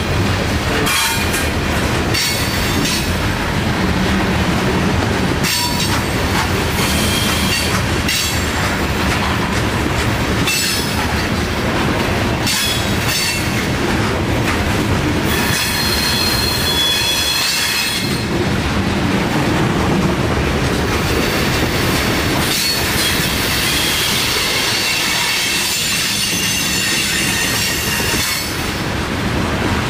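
Loaded coal hopper cars rolling past close by: a steady rumble of steel wheels on rail with repeated clacks over the rail joints, and a high metallic wheel squeal that comes and goes, strongest in the second half.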